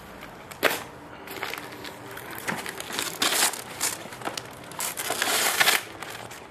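Plastic bag crinkling and rustling around a cardboard box as it is handled, in irregular crackly bursts that start about half a second in and are loudest shortly before the end.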